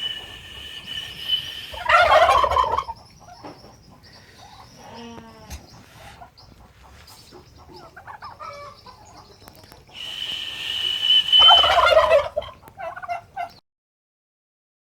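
A steady high whistle is answered by domestic turkeys gobbling, twice: each whistle held for about two seconds and followed at once by a loud gobble. Softer turkey calls fill the gap between.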